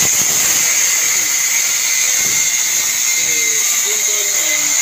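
Electric angle grinder with a cut-off disc running at a steady high whine while it cuts through steel rebar.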